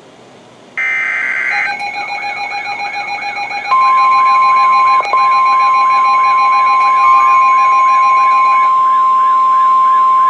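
Emergency Alert System broadcast on NOAA Weather Radio. First comes the last of the SAME header data bursts, a harsh digital screech about a second long. Then the receiver's warbling alert siren starts, and about three and a half seconds in the steady 1050 Hz warning alarm tone joins it, loud and continuous, announcing a new warning.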